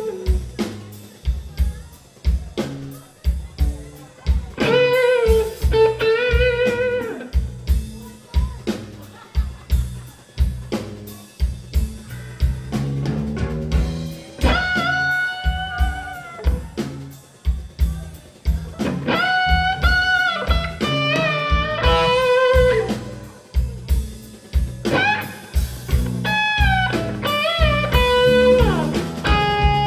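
Live blues band playing an instrumental passage: an electric guitar solo of sustained notes with vibrato and string bends, over bass guitar and a drum kit.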